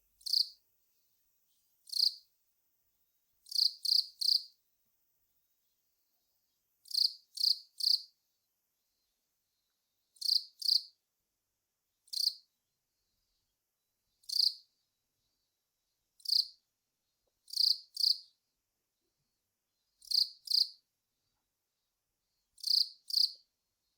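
Long-mouthed cricket (Velarifictous aspersus) singing: short, high chirps, one at a time or in runs of two or three, repeating about every two seconds with silence between.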